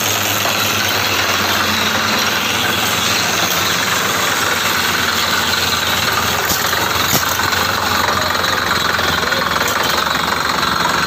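Borewell drilling rig running steadily, its engine and machinery making a continuous loud drone, with a couple of short sharp knocks about halfway through.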